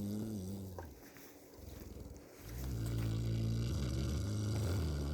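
A cow snoring: a low, droning rumble on the breath that fades about a second in, a quieter rasping breath, then a longer drone from about halfway through.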